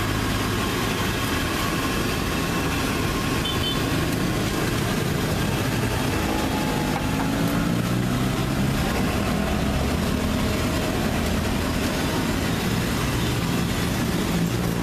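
Busy street traffic, mostly motorcycles passing close by: a steady din of engines and road noise, with engine notes shifting as bikes go past.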